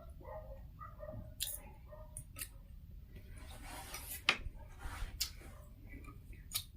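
Faint eating sounds at a meal: quiet chewing and mouth noises with about five sharp clicks spread through it.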